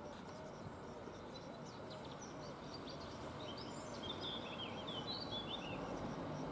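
Distant electric multiple unit approaching along the track, a low rumble growing steadily louder, with birds chirping over it for a few seconds in the middle.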